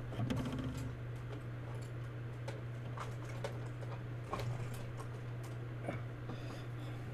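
Scattered light clicks and taps of paint brushes and craft supplies being rummaged through by hand, over a steady low hum.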